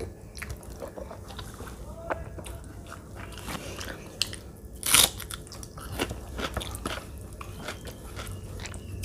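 Close-miked chewing and wet mouth sounds of a person eating a rice meal by hand, with many small clicks and a loud crunchy bite about five seconds in.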